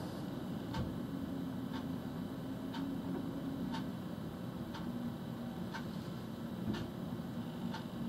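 Sharp ticking, evenly spaced about once a second, over a steady low hum.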